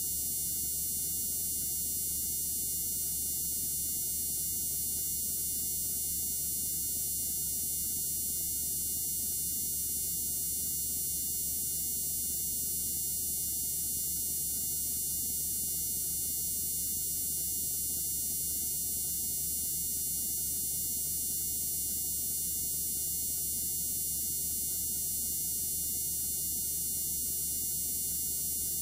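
Steady electronic noise with no programme sound: an even hiss with a low hum beneath it, unchanging in level.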